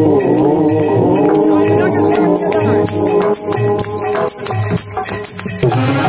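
Live devotional bhajan music: a dholak drum beat under a wavering melody line, with jingling hand percussion keeping a steady rhythm.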